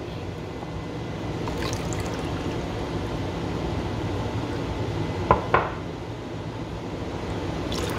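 Red mixed fruit and vegetable juice poured in a steady stream from a glass measuring cup into a glass jug, splashing into the juice already there. Two brief sharp sounds, like glass touching glass, come a little past halfway.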